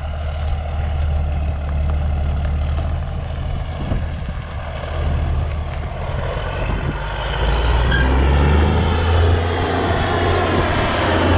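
Diesel truck engine running steadily, getting louder about two-thirds of the way through.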